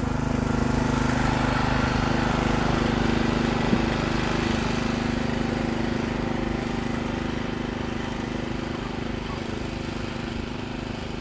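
An engine running steadily at a constant speed, an even low hum that slowly fades.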